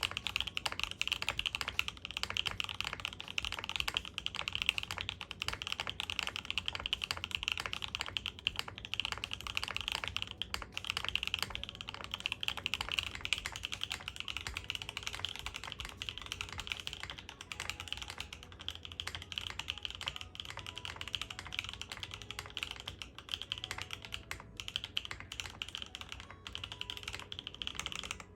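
Steady, rapid typing on a mechanical keyboard with factory-lubed Kailh Spring linear switches (POK stem, POM housings) in a polycarbonate Mode Envoy case with a POM plate and no foam.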